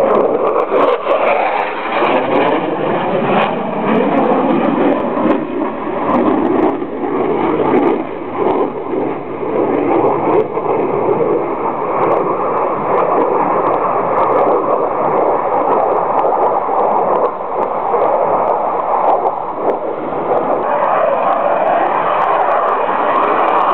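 Saab JAS 39 Gripen fighter's single Volvo RM12 afterburning turbofan in a display flight: a continuous loud jet rush that wavers as the aircraft manoeuvres, growing louder again near the end.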